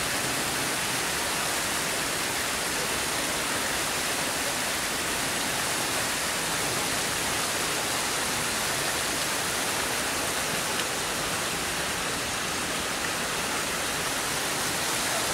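Stream of muddy water rushing over rocks: a steady, unbroken rush of water.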